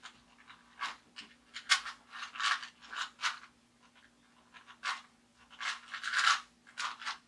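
Rubik's Cube layers being twisted by hand: a quick run of plastic turning scrapes and clicks, about a dozen turns, pausing briefly about three and a half seconds in before more turns.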